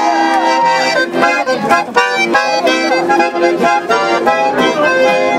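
Live folk-style music: an accordion playing held chords and melody, with an acoustic guitar strummed along.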